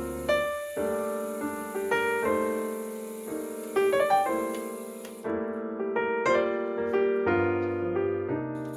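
Background piano music: chords and melody notes struck and left to ring.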